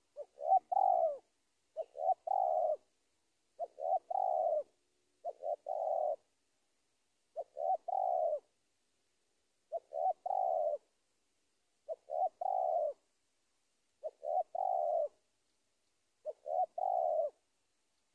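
Spotted dove cooing its rival-challenging territorial call: nine phrases about two seconds apart, each a short note followed by two longer, throaty coos.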